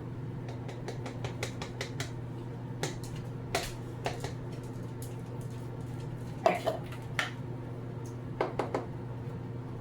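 Irregular light taps and clinks of a kitchen container and utensil being handled, with a few louder knocks, over a steady low appliance hum.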